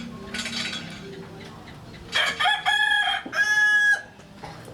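A rooster crowing once, a two-part call lasting about two seconds that starts about two seconds in.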